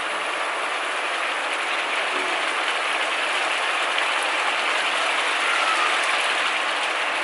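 Buttery squid sauce boiling hard in a nonstick pan: a steady, dense crackling sizzle of bubbles.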